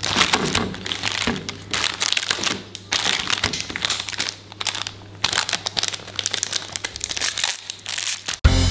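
Foil-lined plastic snack wrappers of Pillsbury Cookie Cake packets crinkling in bursts as the packets are handled, piled on a plate and torn open. Music cuts in just before the end.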